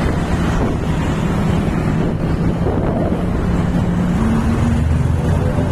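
Moving vehicle's engine hum and road rumble, with wind buffeting the microphone; the engine note rises about four seconds in.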